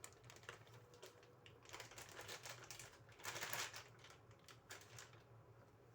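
Faint clicks and scrapes of a spoon against a bowl while stirring a watery potato, carrot and egg batter, with one longer, louder scrape about three seconds in.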